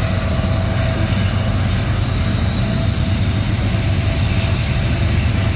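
Loaded coal hopper cars of a freight train rolling past close by: a loud, steady rumble of steel wheels on the rails.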